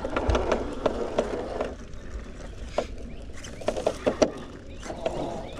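Irregular clicking and crunching of a scale RC rock crawler's tyres and chassis working over rocks and twigs, busier in the first couple of seconds, then sparser sharp clicks.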